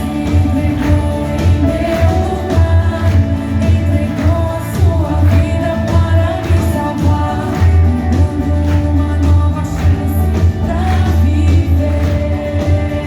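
Worship song played by a band with a singing voice over it: a steady drum beat and a strong, held bass under the sung melody.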